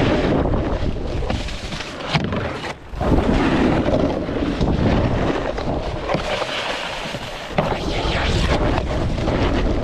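Wind buffeting the microphone while a snowboard slides and scrapes over snow during a run, with a few sharp knocks; there is a short lull just before three seconds in, ended by a sharp knock.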